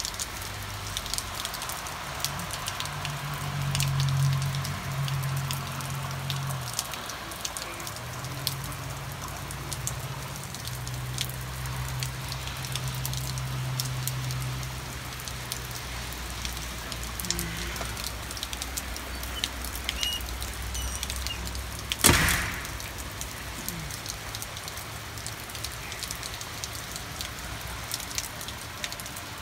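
Steady rain falling on a lawn and a wet street: an even hiss with many small drop ticks. A low hum comes and goes in the first half, and a single sharp knock about three-quarters through is the loudest moment.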